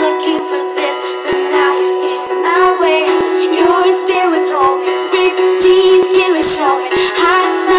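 Music: a pop song mashup with a sung vocal line over a steady accompaniment, no clear words in this stretch.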